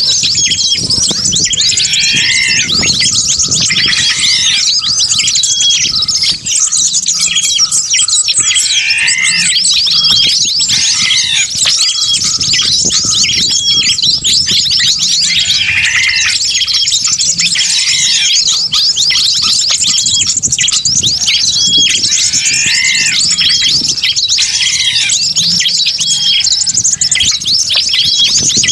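Bird-lure audio: a dense, continuous chatter of many small birds, mixed as a combination of wild bird calls, with a louder arched call recurring every few seconds.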